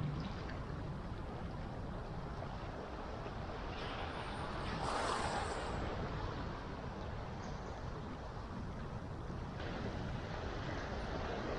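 Small waves washing over the rocky shallows at the shoreline, with steady wind on the microphone; one wave comes in louder about five seconds in.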